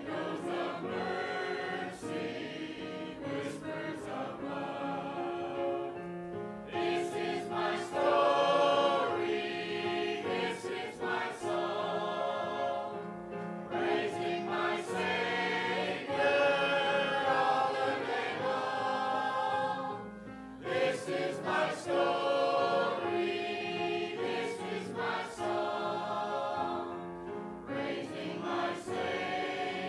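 Church choir of men and women singing a hymn from hymnals, with a short breath between lines about two-thirds of the way through.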